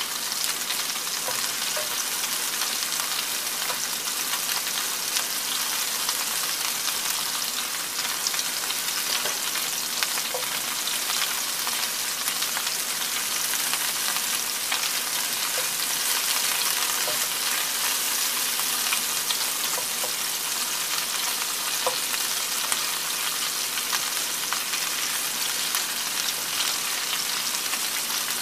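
Meatballs sizzling in hot fat in a cast iron skillet, a steady crackling hiss, with soft scrapes and taps as a wooden spoon turns them over in the pan.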